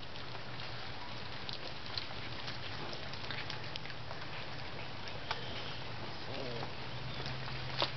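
Sulcata tortoise biting and chewing red hibiscus flowers: scattered small clicks and crunches as it tears the petals and stems.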